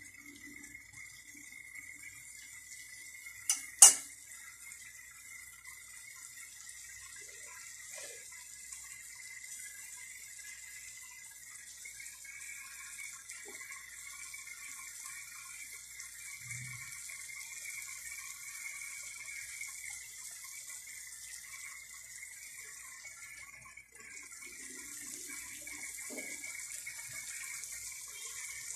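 Steady sizzling hiss of chicken pieces with pineapple chunks and onion cooking in a wok, with a single sharp knock about four seconds in.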